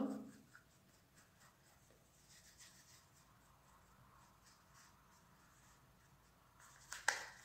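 Faint soft scratching of a make-up brush working liquid foundation over the skin of the face. There is a short, louder noise near the end.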